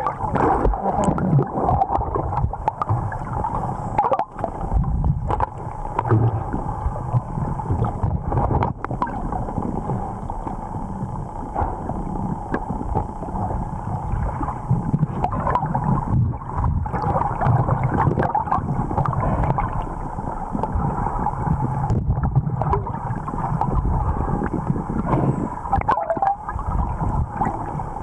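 Muffled underwater water noise, rushing and gurgling as a freediver swims while holding a struggling speared wolf fish, with scattered small clicks and knocks throughout.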